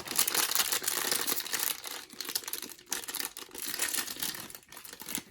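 Crinkling and rustling of blind-box packaging being opened, with a little tearing, loudest in the first two seconds and then in shorter bursts of rustling.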